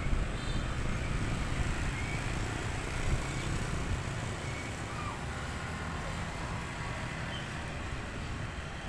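Street traffic ambience: motorbikes and a car passing on a wide road, a steady low rumble throughout.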